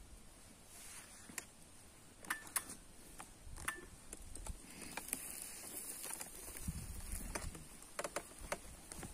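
Scattered sharp crackles and snaps, a dozen or so at irregular intervals, from a smouldering campfire with corn cobs roasting in its embers.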